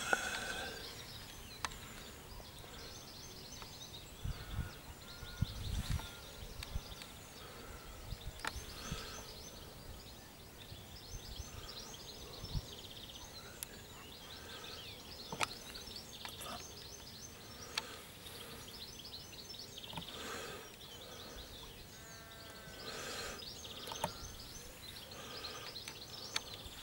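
Dawn chorus: several birds singing, with many short chirps and trills and a few whistled notes. A few low thumps about five seconds in and again near the middle, and the odd sharp click.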